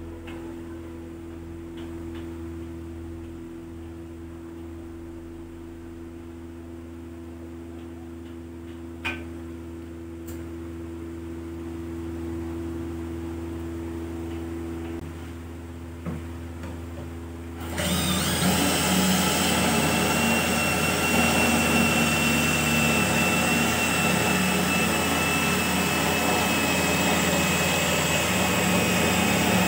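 A power drill starts suddenly about two-thirds of the way through and runs steadily with a high whine. It is spinning a wooden blank through a sharpened nut set in a wooden block, and the nut's edge shaves the blank into a round dowel. Before it starts there is only a quiet steady hum with a couple of light knocks.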